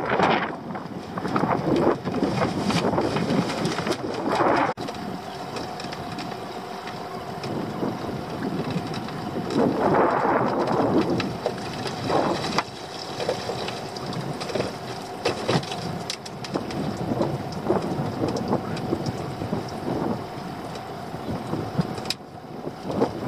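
Wind buffeting the microphone on an open boat, with scattered knocks and rattles of crab pots being lifted and shifted around the deck. The wind swells loudest about ten seconds in.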